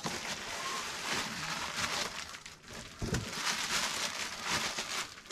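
Cardboard box and packaging being opened and handled to get a radio transmitter out: continuous rustling and crinkling, with a knock about three seconds in.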